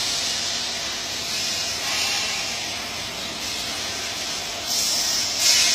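MIG welding arc hissing and frying steadily, with a louder surge near the end.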